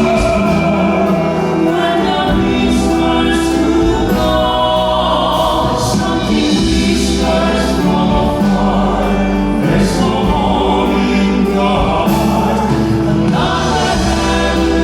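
Live music: a male vocal quartet singing in full harmony over instrumental backing, loud and sustained.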